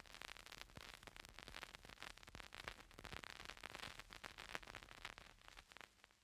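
Near silence: a faint crackling hiss that fades out near the end.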